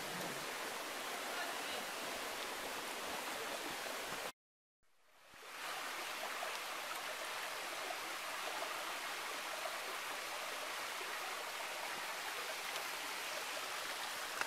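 Steady rushing of a mountain stream over rocks. The sound drops out for about half a second, four seconds in, then fades back up.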